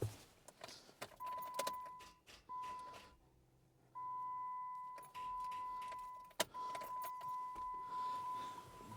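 Jeep Wrangler's in-cab warning tone sounding steadily in long stretches with short breaks, with keys jingling and clicks from the ignition, as a start is tried on a dead battery with a jump pack connected. The engine does not start.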